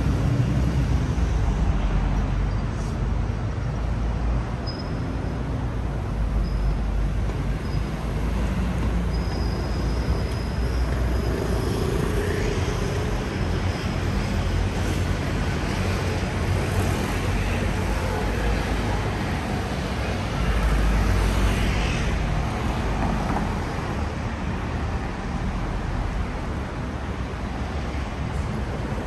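Road traffic on a city street: a steady rumble of passing cars and buses, swelling louder as a vehicle goes by about 20 seconds in, with a few faint short high squeals early on.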